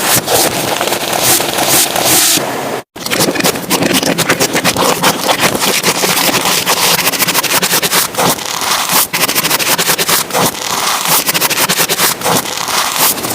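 Slime being squeezed and poked close to the microphone, with dense crackling and popping as air pockets burst. A brief cut to silence about three seconds in.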